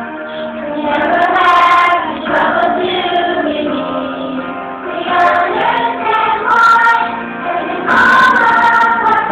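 A song sung with musical accompaniment, the voices holding long notes in phrases that rise and fall.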